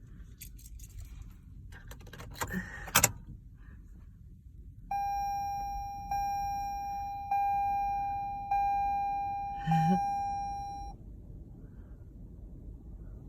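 Keys jangling with a sharp click, then a car's warning chime dinging five times, about once every 1.2 seconds, each ding fading before the next. A low wind rumble runs underneath.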